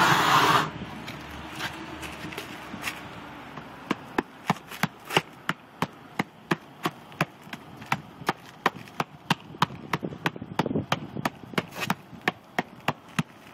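A steady roaring hiss, most likely the propane roofing torch, cuts off under a second in. A few seconds later a long run of sharp, evenly spaced tapping knocks begins, about three a second, as work continues on the new flashing.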